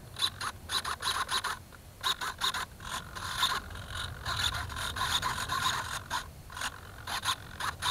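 Handling noise picked up right at the foam flying wing's onboard keychain-camera microphone: irregular scraping and rubbing as the wing is turned over in the hands.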